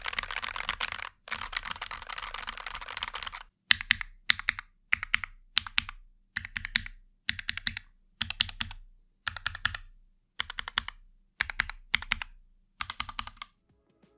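X-Plus VickyBoard mechanical keyboard being typed on. Its Gateron G Pro 2.0 Yellow switches sit in the acrylic top case with no plate, over a thin foam layer. Fast continuous typing gives way, about three and a half seconds in, to short separate clusters of keystrokes a little over once a second.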